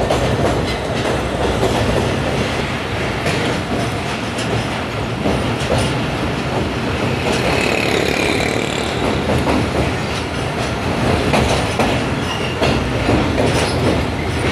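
Passenger train coaches running across a steel truss bridge: a steady loud rumble of wheels on rails with a continual clickety-clack over the rail joints.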